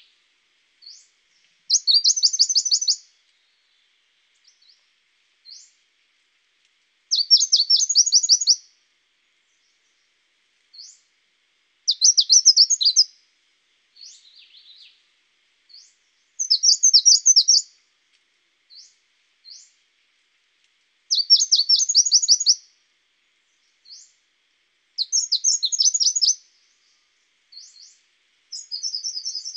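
A songbird singing a short, fast trilled phrase about every four to five seconds, with single thin, high chirps in between.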